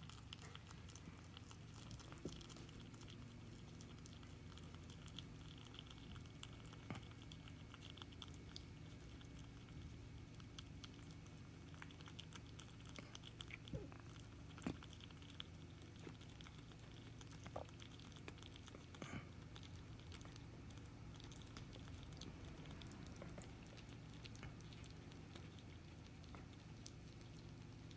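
Flemish Giant rabbit chewing banana from a hand: faint, irregular small clicks and smacks of its mouth, a few slightly louder around the middle.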